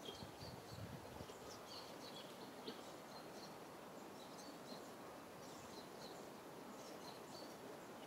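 Faint outdoor ambience: small birds chirping in short high notes, several times a second, over a steady background hiss.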